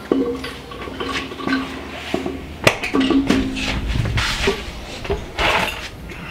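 Metal clanks and knocks from an aluminium cylinder head and bolts being handled and set onto a Ford Coyote V8 block on an engine stand; a few of the hits ring on briefly. Two short rustling noises come in the second half.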